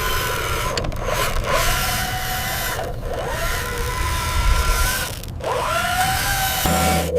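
Small electric motors and gearboxes of RC construction models whining, the pitch dipping and climbing back several times as the machines work.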